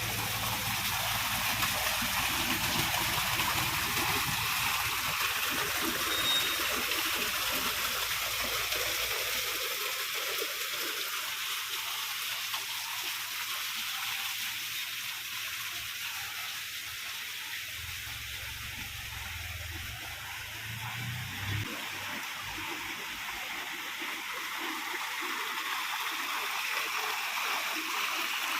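Water falling and splashing down a small homemade waterfall, a steady rushing trickle. A low rumble comes and goes underneath it.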